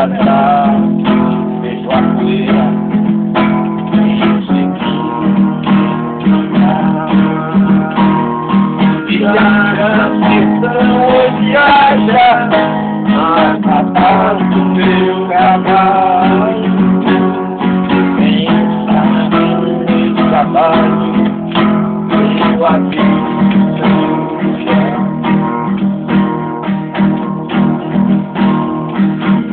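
Acoustic guitar strummed in a steady rhythm, playing a sertanejo song.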